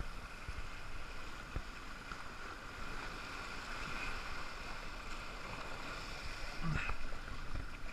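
Steady wash of shoreline surf and wind noise on the microphone, with a few faint low knocks.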